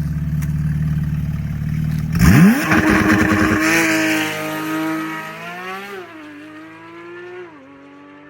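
Porsche 992 GT3's 4.0-litre naturally aspirated flat-six with an FI aftermarket exhaust, held at steady revs for a launch, then launching about two seconds in: the note jumps sharply in pitch and loudness, then climbs and drops back at several quick upshifts as the car pulls away and fades.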